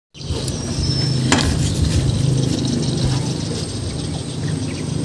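A steady low motor rumble, with a single sharp click a little over a second in.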